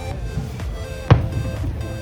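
Music playing, with one sharp bang about a second in.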